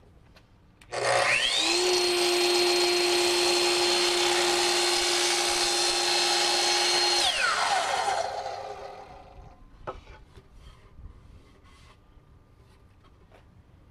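Hitachi sliding compound miter saw's motor spinning up about a second in, running steadily with a high whine while the blade crosscuts the aspen panel, then winding down once the trigger is released, about six seconds later. A few light knocks follow as the cut board is handled.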